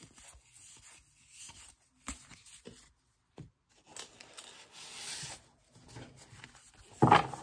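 Baseball trading cards and their paper-foil pack wrappers being handled: light rustling, sliding and taps, a longer tearing rasp just past halfway, and a louder knock near the end.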